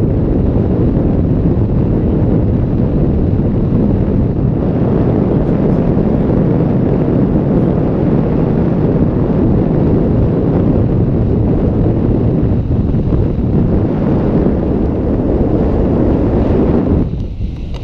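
Wind buffeting the microphone of a moving vehicle, mixed with road and engine noise: a loud, steady, low rumble that dips briefly near the end.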